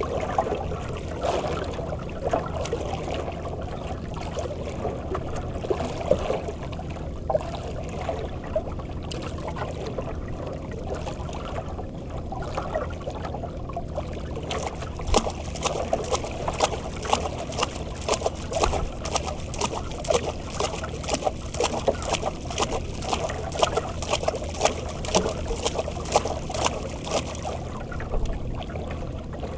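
Sea water sloshing and lapping against the hull of a small outrigger fishing boat, steady throughout. From about halfway on, a rapid run of sharp ticks joins it.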